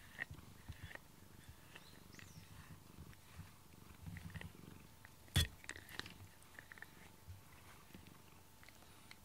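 Domestic tabby cat purring close up while rubbed with a rubber grooming brush, with faint scratchy strokes of the brush in its fur. A single sharp knock sounds about five seconds in.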